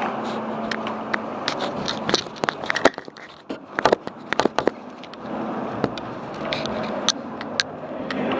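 Airsoft guns firing in the middle of a game: scattered sharp snaps and cracks, thickest in a quick cluster around the middle, over a steady low hum.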